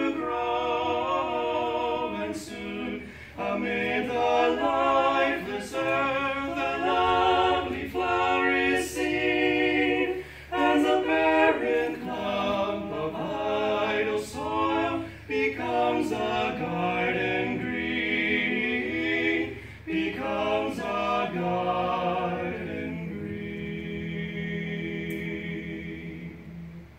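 A three-voice a cappella group, two men and a woman, singing a hymn in harmony. The song ends on a long held chord near the end.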